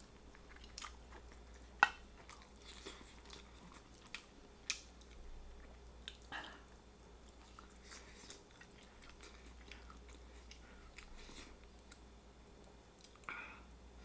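Close-up chewing and biting of barbecue rotisserie chicken: wet mouth sounds over a faint room hum, with scattered short clicks and smacks, the sharpest about two seconds in.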